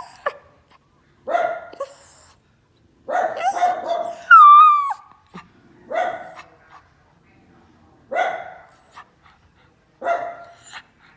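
A dog barking in short bouts about every two seconds, with one loud, high, whining yelp that falls in pitch about four seconds in. This is alert barking at people passing by.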